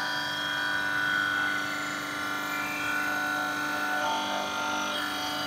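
Steady mechanical whine of a propeller test rig, the oil pump driving a Junkers VS-11 propeller hub so that an original blade slowly turns in pitch. The whine holds several steady tones, which shift about four seconds in and again about a second later.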